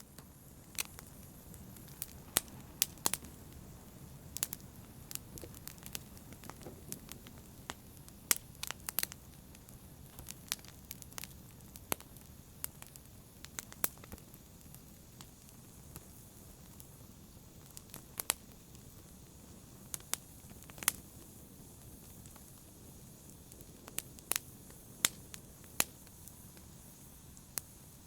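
Wood fire burning in a fireplace: irregular sharp crackles and pops of burning logs over a steady low rush of flames.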